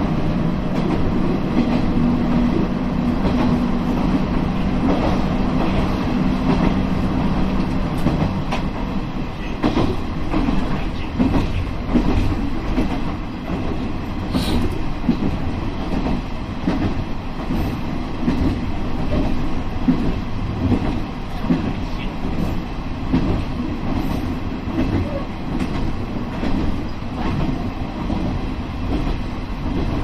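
KiHa 32 single-car diesel railcar running along the track, heard from inside: a steady diesel drone for about the first eight seconds, then the engine note drops away and the wheels' clatter over the rails carries on.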